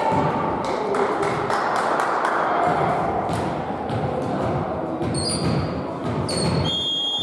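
Echoing sports-hall ambience between volleyball rallies: a diffuse murmur of the room, a few sharp knocks, and brief sneaker squeaks on the wooden court. A steady high tone starts near the end.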